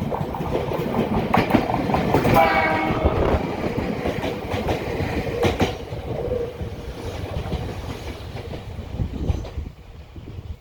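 Bessho Line 1000-series electric train passing close by, its wheels clicking on the rails. It gives one short horn blast about two seconds in, and the train sound fades away near the end.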